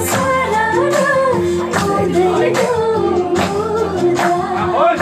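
Song playing: a singing voice over a steady beat.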